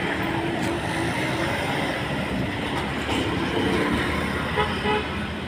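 Steady rumble of passing vehicles, with a short pitched toot about four and a half seconds in.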